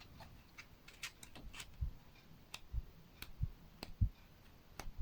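Light, irregular clicks and soft taps of a small paper flipbook being handled as its pages are turned.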